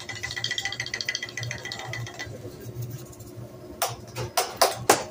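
Seasoning shaker rattled over fried rice on a hibachi griddle: a quick even rattle for about two seconds. After a short lull come several sharp knocks near the end.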